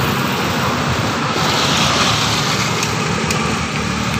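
Road traffic passing close by: a steady engine hum under a loud rush of tyre and wind noise that swells around the middle. No horn is played.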